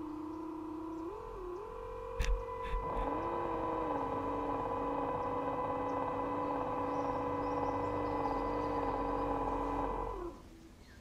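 Small electric motors of an RC model cruise ship whining steadily, two tones at different pitches that shift slightly as their speed changes, then both stop near the end. Two sharp knocks come a little after two seconds in.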